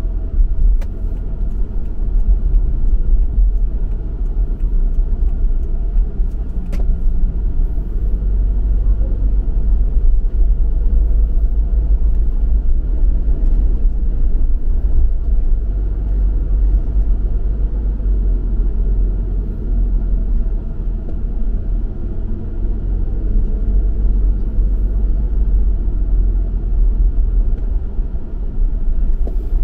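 Steady low road rumble of a car being driven, its tyre and engine noise strongest in the deepest bass.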